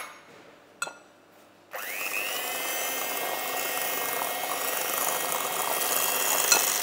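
A handheld electric mixer switched on a little under two seconds in, its motor whining up to speed and then running steadily as the beaters whisk eggs and sugar in a glass bowl. A single click comes just before it starts.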